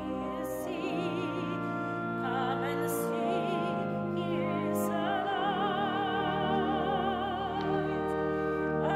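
Classical music: a solo voice singing with wide vibrato over sustained accompanying chords.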